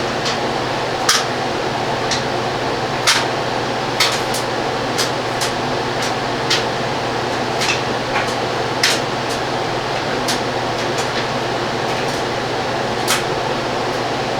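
Steady whirring room noise like a fan or air conditioner, with about nine short sharp clicks at irregular intervals from small hand tools being worked on thin wire.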